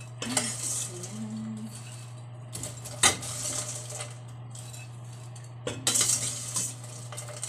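A utensil scraping and clinking against a stainless steel cooking pot as caramel popcorn is scooped out into a bowl, with the popcorn rustling. A sharp clink comes about three seconds in, and a flurry of scraping comes around six seconds.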